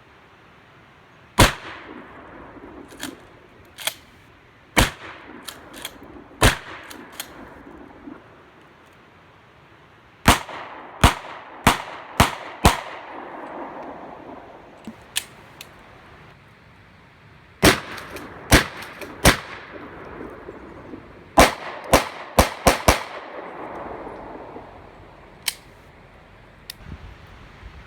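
Gunshots, about two dozen in all: a few single cracks, then quick strings of three to five shots fired in rapid succession. Some are close and loud, others fainter, each followed by a short echo.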